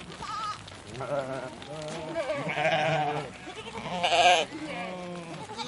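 Several sheep bleating, about five wavering calls one after another, the loudest about four seconds in.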